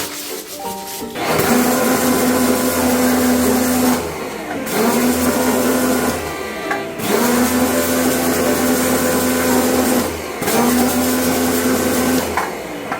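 Electric pressure washer's pump motor running in four bursts of a few seconds, a steady hum under a hissing spray, with short pauses between.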